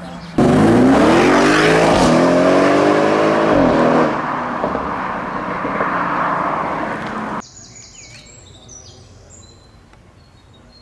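Audi RS6 Performance C7's 4.0 biturbo V8 through an Akrapovic exhaust accelerating hard: the note climbs, drops at one upshift about two seconds in, climbs again and falls away at about four seconds. A quieter stretch of engine noise follows, then it cuts off suddenly and birds chirp faintly near the end.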